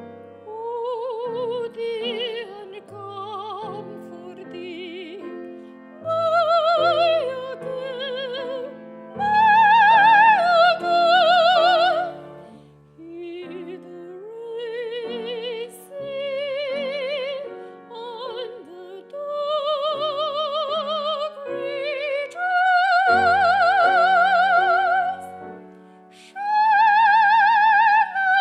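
Classical soprano singing an art song with piano accompaniment, holding long high notes with a wide vibrato in several phrases separated by short breaths.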